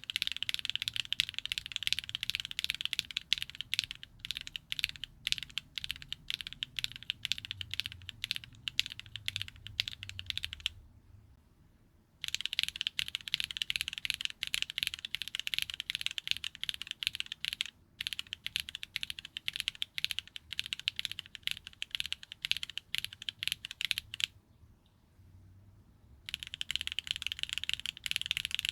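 Continuous fast typing on a custom mechanical keyboard fitted with HMX rail-bottom-out linear switches, the keystrokes making dense clicks. It comes in three stretches of typing broken by two short silent gaps, one about 11 seconds in and one about 24 seconds in.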